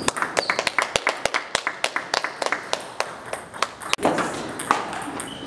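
Table tennis rally: the celluloid-type ping-pong ball clicks sharply off the rackets and the table, several times a second. The clicks stop about four seconds in and a steadier noise of the hall takes over, with one more click shortly after.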